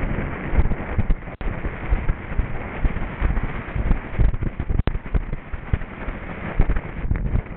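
Wind buffeting the microphone of a camera on a galloping racehorse's rider, with the horse's hoofbeats on turf underneath. The sound cuts out for an instant twice.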